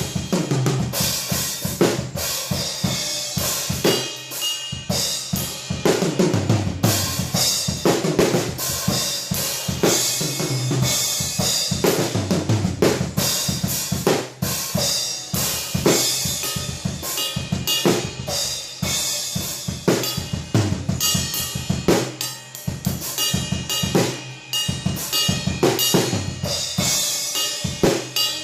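Acoustic drum kit played continuously in a fast practice groove: dense snare and bass drum strokes with cymbals, a Moongel gel pad damping one cymbal and a drum's resonant head.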